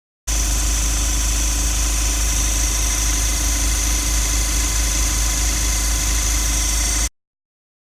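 Mitsubishi 4D56 common-rail turbo-diesel engine idling steadily, with a steady high whine over the running. It starts and cuts off suddenly.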